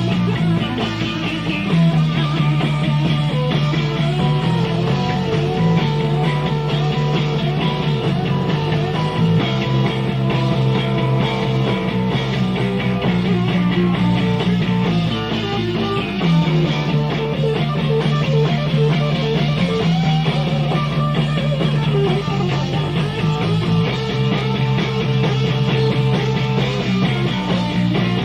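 Live rock band playing an instrumental passage, with electric guitar over a bass line that holds each note for a second or two, on a lo-fi bootleg tape recording.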